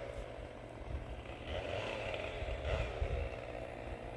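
Distant engine-driven machinery from tree-felling work running steadily: a low rumble under a wavering engine drone.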